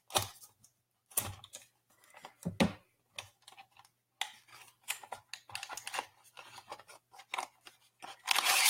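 Scattered clicks, taps and rustles of hands handling blind-box packaging and small plastic vinyl toy pieces, with a longer rustle near the end.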